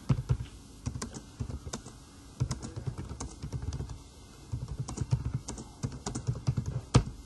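Typing on a computer keyboard: key clicks in quick, irregular runs, with one louder key press near the end.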